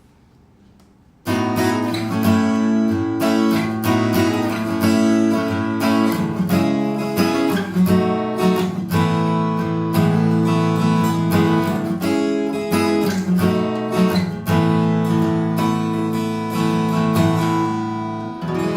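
Art & Lutherie Cedar Antique Burst acoustic guitar, with a solid cedar top and wild cherry back and sides, being played. A chordal riff of strummed and picked notes starts suddenly about a second in and keeps ringing, easing off a little near the end.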